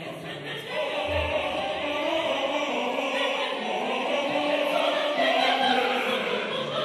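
Mixed choir singing a sustained choral passage in many voices, swelling louder toward the end.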